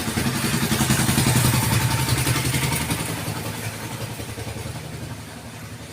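A vehicle engine running nearby, loudest about a second and a half in, then fading steadily away as if moving off.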